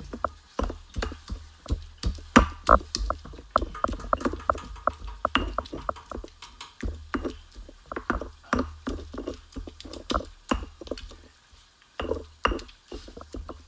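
Stone pestle (tejolote) knocking and grinding in a volcanic-stone molcajete, crushing tomato and chile into salsa. The strokes come in a quick uneven run, several a second, with a short lull about two seconds before the end.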